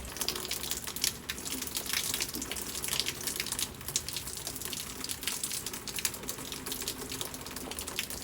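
Steady rain falling, a dense patter of many small drops over a continuous hiss.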